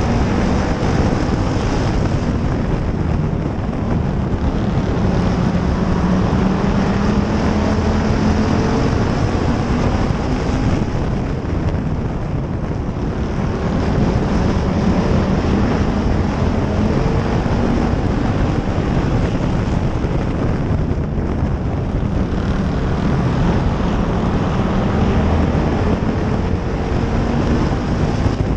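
Stock car's engine running hard at racing speed, heard from an onboard camera, its pitch rising and falling a little as the throttle changes around the oval.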